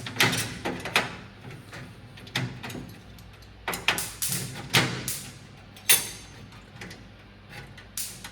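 Irregular knocks and clatters of a knife prying at the filter tray inside a switched-off commercial dishwasher as the tray is worked loose and lifted. The sharpest knock, about 6 s in, rings briefly.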